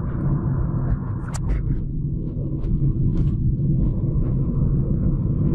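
Steady low rumble of road and engine noise inside a moving car's cabin. A few short sharp ticks come through about a second and a half in, and again about three seconds in.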